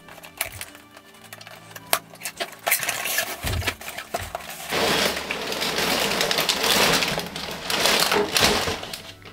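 Cardboard LEGO box being opened: small scissors snipping through the tape seals with scattered clicks and scrapes. From about halfway, louder rustling and crinkling of the plastic bags of LEGO pieces as they are handled.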